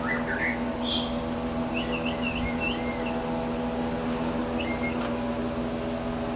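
A steady mechanical hum, like a ventilation fan or motor running, with small birds chirping briefly over it a few times.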